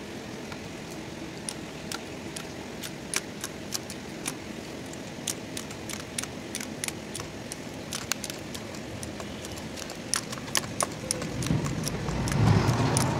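Sharp metallic clicks at an uneven pace as hand crimping pliers bend the header-plate tabs over the plastic tank of an Isuzu truck radiator, closing the tank back onto the core. A louder low rumble comes near the end.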